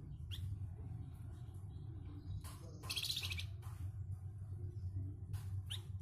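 Caged flamboyan songbird calling: short sharp chirps that sweep downward near the start and end, and about halfway one harsh rasping call, the rough voice the bird is kept for. A steady low hum sits underneath.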